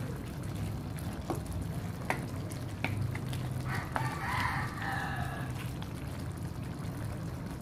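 A wooden spatula stirs chicken and kangkong in simmering coconut milk in a pan, with scattered clicks of the spatula against the pan over a steady low hum. A rooster crows in the background about four seconds in, lasting a second and a half.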